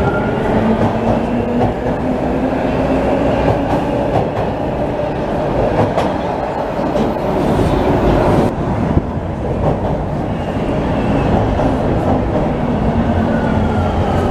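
Toronto TTC T1 subway trains in a station: one train running along the platform, then another pulling in. Wheels rumble and clatter on the rails throughout, with a motor whine near the start and again as the second train comes in.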